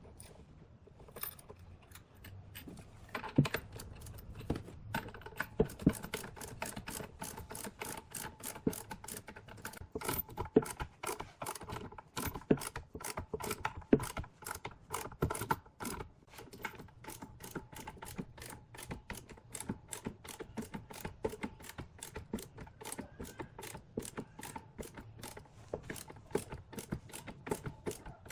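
Rapid, irregular sharp clicks and taps, a few each second, over a faint steady hum. The taps are loudest in the first half.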